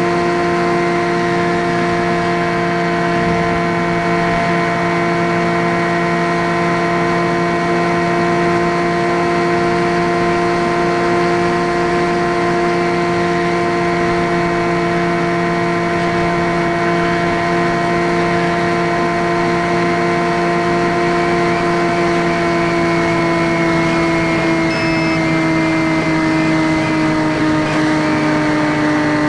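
Skywalker X5 flying wing's electric motor and pusher propeller running at a steady throttle, a loud, even droning whine as heard from the onboard camera. The pitch eases slightly lower over the last few seconds.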